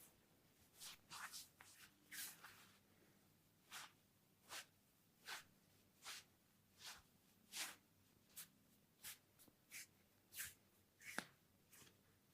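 Soft, short rubbing swishes of hands massaging, repeating about once every three-quarters of a second, with one sharper, louder stroke about eleven seconds in.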